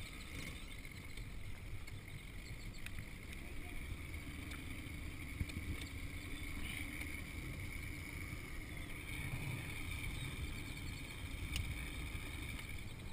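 Small runabout motorboat's engine running at low speed as the boat moves off from the dock, a steady low rumble.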